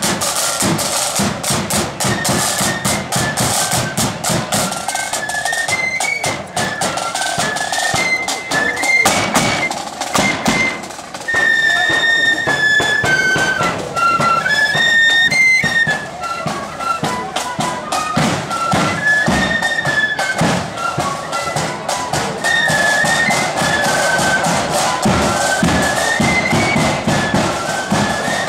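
Blood-and-thunder marching flute band playing a tune on flutes in unison, with snare drums beating out a dense, rattling rhythm underneath.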